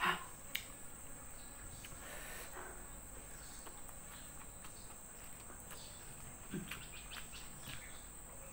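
Steady high-pitched drone of insects, with scattered soft clicks and crackles of fingers pulling apart fried dried salted fish.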